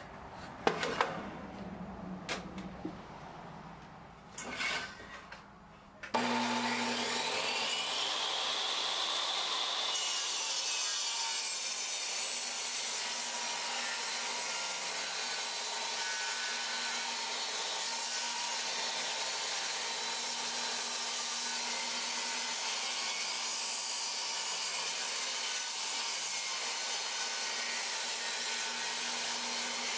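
Table saw running and ripping a wooden board lengthwise along the fence. The saw starts suddenly about six seconds in, then gives a steady cutting noise, which gets brighter and harsher at about ten seconds as the blade bites into the wood.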